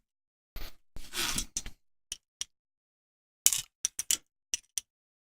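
Small sharp clicks and taps as lock pins are picked out of a gutted pin-tumbler core and handled over a pinning tray, with a short rustle of handling about a second in and a quick run of clicks near the end.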